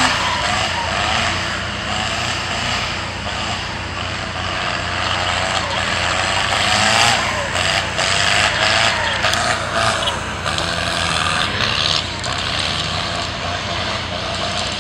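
A 4x4 vehicle driving, its engine and tyre and wind noise running steadily, with voices rising over it around the middle.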